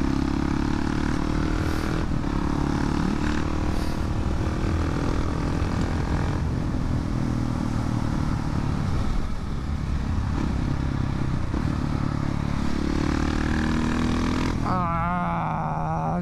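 Single-cylinder engine of a KTM 690 SMC R supermoto with an FMF 4.1 slip-on exhaust running steadily at highway speed, mixed with wind noise. Near the end the wind noise drops and the engine note changes as the bike slows.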